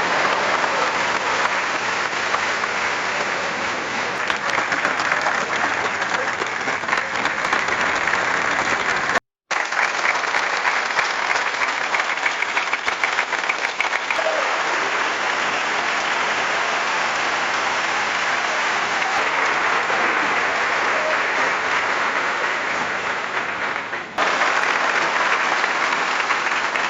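Crowd applause: a large audience clapping steadily in dense, continuous applause, made up of several applause recordings joined together. It cuts out for an instant about nine seconds in and changes again near the end.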